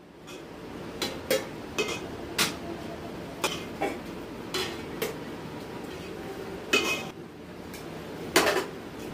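Rice being served with a metal spoon from an aluminium pot onto steel plates: about ten irregular metal clinks as the spoon knocks on the pot and plates, the two loudest near the end.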